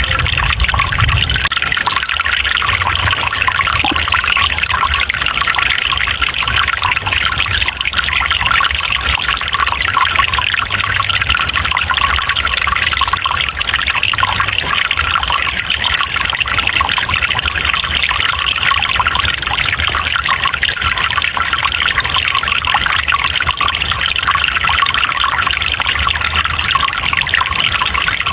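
Water trickling and splashing steadily, as a small forest stream flowing over rocks.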